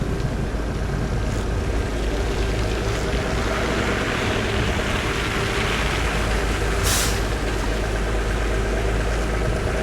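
Heavy vehicle engine running steadily, with a noisy hiss swelling and fading over a few seconds and a short, sharp air-brake hiss about seven seconds in.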